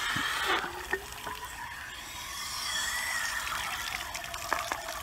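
Water running from an outdoor spigot into and over a conch shell as it is rinsed out.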